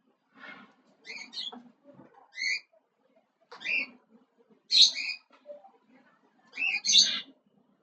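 A small animal's short high chirps, about six of them spaced roughly a second apart, over a faint low hum.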